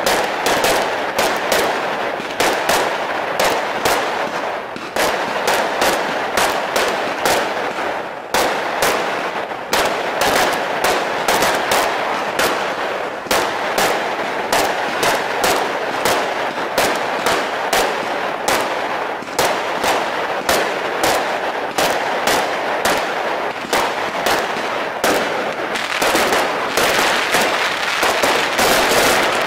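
Aerial fireworks launching and bursting in quick succession: a steady run of sharp bangs, two or three a second, over a continuous hiss, growing denser and louder near the end.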